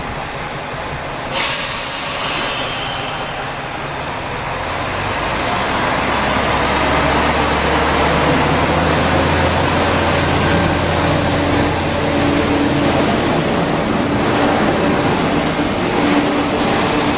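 Hisatsu Orange Railway single-car diesel railcar setting off: a sharp hiss of air from the brakes about a second in, then the diesel engine opening up into a loud, steady low drone as the railcar pulls away.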